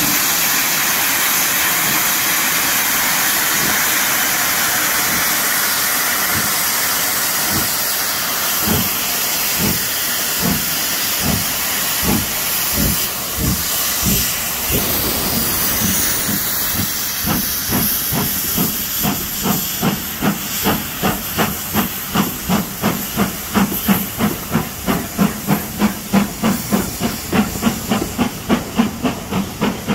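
Stanier 'Black 5' two-cylinder 4-6-0 steam locomotive 45212 starting a train. A steady loud hiss of escaping steam comes first, then exhaust chuffs begin about seven seconds in, slowly at first and quickening to about two or three a second as the locomotive gathers speed.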